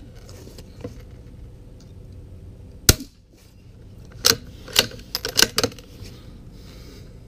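A single suppressed shot from a Savage MKII FV-SR .22LR bolt-action rifle with a Form 1 suppressor firing SK Rifle Match ammunition: one sharp crack about three seconds in, metered at 86.2 dB. A little over a second later comes a quick run of clicks as the bolt is worked to eject the case and chamber the next round.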